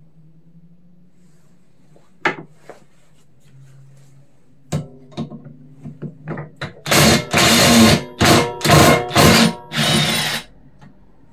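A few sharp clicks and knocks of tool handling, then an electric drill-driver run in several short bursts, typical of driving out screws while the mower's left-side panel is taken off.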